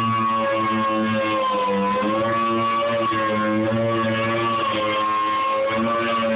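Power sander running steadily, its motor whine wavering slightly in pitch as it is worked over the surface.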